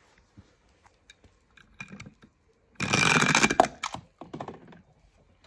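Scattered faint clicks, then a dense rattle of rapid clicks lasting about a second, and a second, shorter and quieter rattle just after it.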